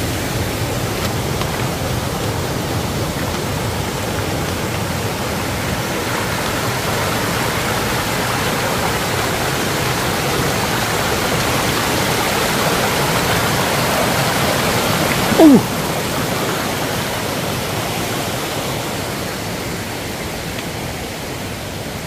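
Mountain stream rushing over rocks, a steady even rush of water. About fifteen seconds in, a short, loud sound glides down in pitch.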